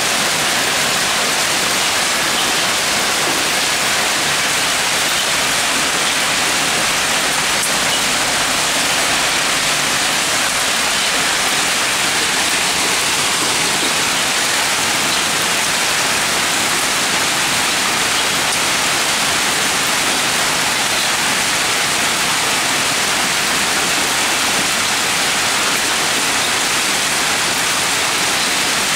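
Heavy hail and rain pelting a paved street, a steady, dense hiss of stones and water hitting the ground.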